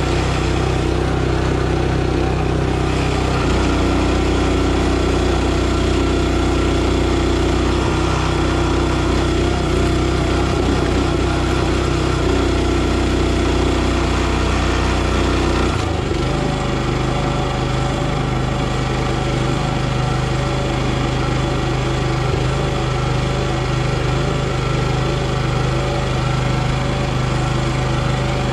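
Petrol engine of a NorthStar 37-ton log splitter running steadily. Its note changes abruptly about two-thirds of the way through.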